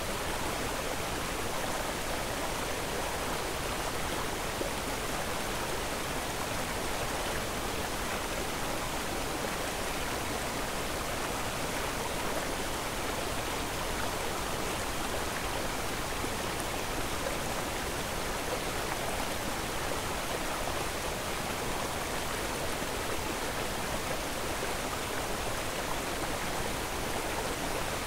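A steady, even rushing noise with no distinct events, unchanging in level throughout.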